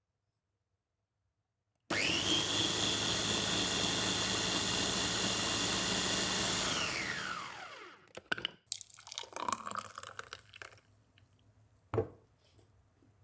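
A small high-speed electric motor switches on about two seconds in, its whine rising quickly to a steady pitch. It runs for about five seconds, then winds down with a falling whine. Scattered clicks and knocks follow, with one sharp knock near the end.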